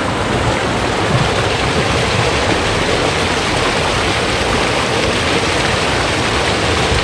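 Fast-flowing rainforest creek rushing loudly and steadily, a dense unbroken water noise.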